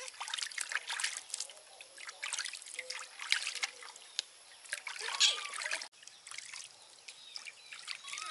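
Bath water splashing and trickling in a steel basin as hands wash a baby monkey, in small, irregular splashes.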